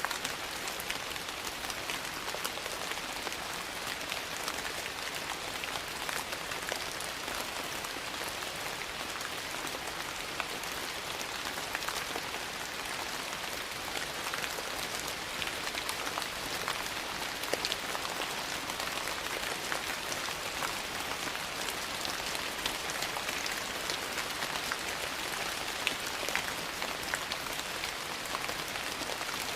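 Steady rain, an even hiss dotted with many small sharp ticks of drops.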